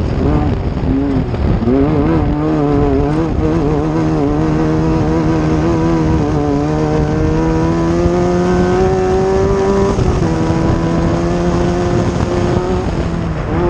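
Off-road race vehicle's engine running hard. Its pitch wavers up and down with the throttle for the first several seconds, then climbs steadily in one long pull, drops suddenly about ten seconds in, and holds level after that.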